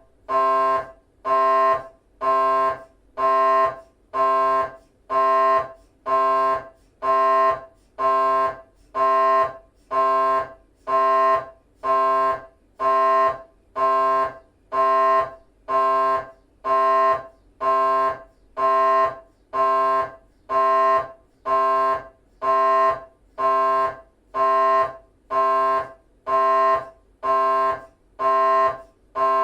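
GE 3-tesla MRI scanner's gradient coils running a T1-weighted axial 3D FSPGR sequence: a loud, pitched electronic buzz that pulses on and off evenly, a little faster than once a second, with short gaps between pulses.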